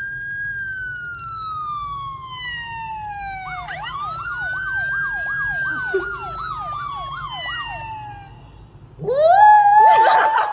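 A police-style siren wails twice, each time rising and then slowly falling; the second wail has a fast up-and-down yelp laid over it, about three warbles a second. About nine seconds in, a small white curly-coated dog howls along, a rising then falling howl that is the loudest sound.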